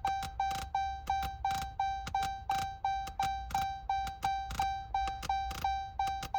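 Newly installed 8-inch Uconnect radio in a 2017 Dodge Charger Pursuit giving a weird, rapidly repeating electronic chime: one mid-pitched tone about three times a second, each starting with a click and fading. It sounds on the unit's first power-up, while it appears to be installing files.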